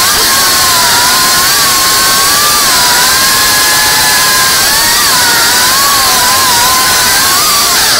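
Brushless motors and propellers of a GEPRC Mark5 five-inch FPV quadcopter whining over a loud hiss, the pitch wavering up and down as the throttle changes, with quick dips and swoops around the middle and near the end.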